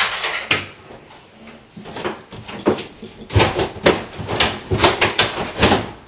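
Over-the-range microwave knocking and clattering against its wall-mounting bracket as it is lifted off the bracket's hooks. A few separate knocks at first, then a quick run of clunks, several a second, in the second half.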